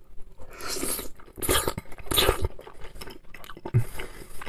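A mouthful of boiled dumpling being bitten off a fork and chewed close to the microphone, in irregular wet bursts, with a few sharp clicks of the fork against the plate.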